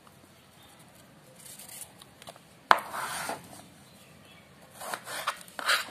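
Kitchen knife peeling and cutting a raw green banana on a plastic cutting board: faint scraping of the blade along the skin, a sharp knock of the knife on the board a little under three seconds in (the loudest sound), then a few short scraping cuts near the end.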